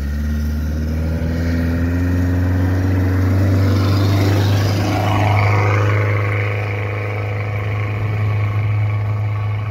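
Minivan engine labouring up a snowy road, its note rising as it approaches. A rush of chained tyres on packed snow peaks as it passes close, about four to five seconds in, over a steady low engine hum.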